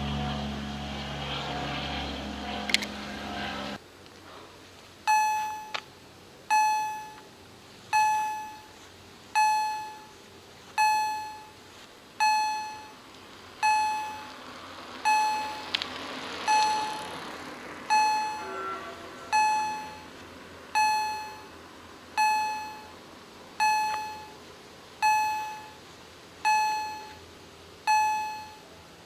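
Level-crossing electronic warning bells (Auer EHL-S10 e-bells) sounding. A single bright ding repeats about every second and a half, each one fading away before the next. The bells signal that the crossing is active and a train is coming while the half-gates come down. Before them there is a steady low rumble, which cuts off about four seconds in.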